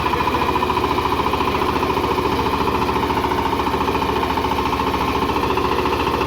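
VST Shakti 130 DI power tiller's single-cylinder diesel engine running steadily with a fast, even chugging beat.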